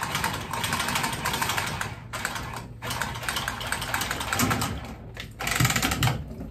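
Milwaukee M12 cordless tubing cutter running as it cuts through a copper water pipe: a rapid, rattling whir that comes in bursts with short pauses.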